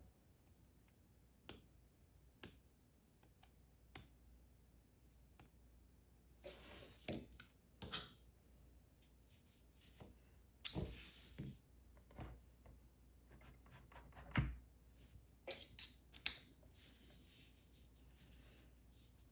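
Scattered small sharp clicks and short scrapes of small metal parts and tools being handled while the pins of a Goal D9 dimple lock are taken out. The clicks come singly every second or so at first, then several short scraping spells, the loudest about eleven and sixteen seconds in.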